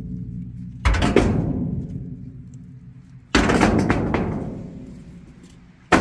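Heavy booming hits, four in all, the first two close together, each ringing away slowly over about two seconds.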